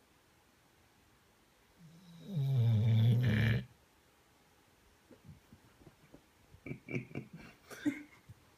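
Dog snoring: one loud, low, drawn-out snore lasting nearly two seconds about two seconds in, followed by a few faint irregular clicks.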